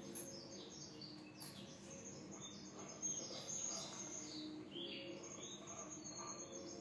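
Small birds chirping in short, quick falling notes, scattered throughout, over a faint steady high-pitched trill.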